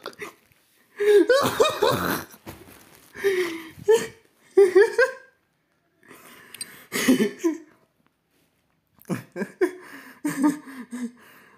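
A man laughing in several bursts, with short breathy gaps between them.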